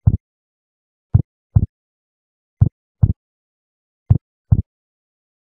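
Heartbeat sound effect: pairs of low thuds, one pair about every one and a half seconds, with dead silence between.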